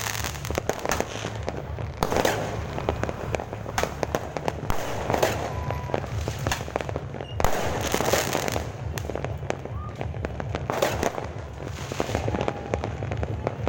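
Fireworks going off without pause: dense crackling pops, with heavier volleys swelling about every three seconds.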